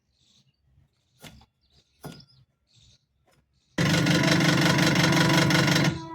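A few faint clicks, then about four seconds in a washing machine motor switches on with a loud buzzing hum for about two seconds before dropping to a quieter steady hum. The repairman suspects the motor is faulty.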